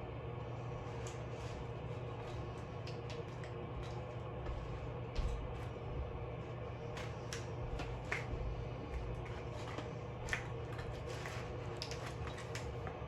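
Lamp parts and packaging being handled: scattered clicks, taps and rustles with a few soft low thumps, over a steady low hum.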